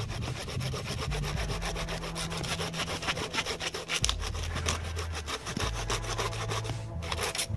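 Hand saw cutting through wood in quick, even back-and-forth strokes that stop about seven seconds in.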